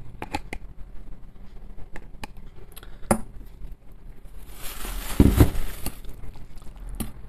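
A metal spoon scraping and clinking against a glass jar of mayonnaise, then a fork stirring it through a plate of instant noodles, with scattered light clicks of metal on jar and plate. About five seconds in comes a short rush of noise with a low thump, the loudest sound.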